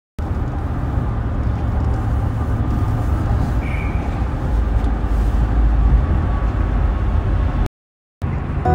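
Steady road and engine hum inside a moving car's cabin, a low rumble with some hiss, cut off briefly by a short silence near the end.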